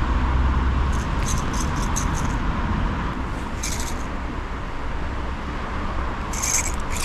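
Spinning reel being cranked to retrieve a lure after a cast. It gives short bursts of rattly clicking about a second in, again near the middle and near the end, its gears rattling inside badly enough that the angler says a new reel is due. A steady low rumble runs underneath.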